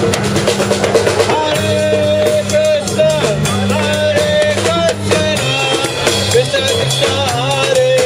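Live kirtan music: a drum kit played with sticks, a guitar and a two-headed hand drum, with a voice singing over a steady bass line.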